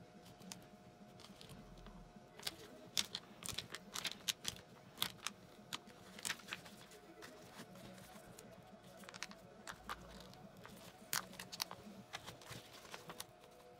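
Excess heat-transfer vinyl being weeded by hand, peeled off its clear carrier sheet around a cut design: faint, irregular crackling and crinkling as the vinyl pulls away.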